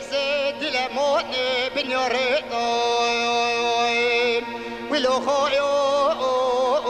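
A man singing a Yezidi song in a Middle Eastern style with music behind him, in ornamented lines that waver in pitch. Midway he holds one long note for about two seconds, then the ornamented line resumes.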